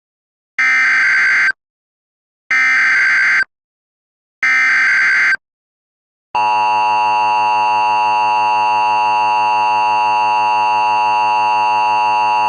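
Emergency Alert System tones opening a mock Amber Alert: three one-second bursts of the SAME digital header, about two seconds apart, then the steady two-tone EAS attention signal starting about six seconds in.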